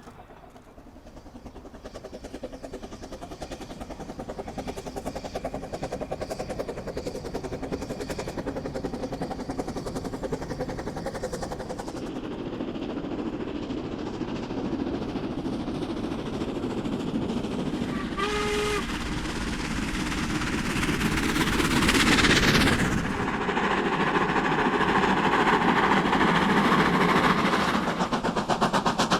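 Steam locomotive working hard, its exhaust beats growing steadily louder as it approaches. About two thirds of the way in the whistle sounds briefly, followed by a loud rush as the engine passes close.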